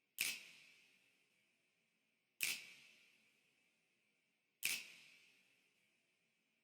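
Three identical sharp hits, evenly spaced a little over two seconds apart, each with a short ringing tail that fades away.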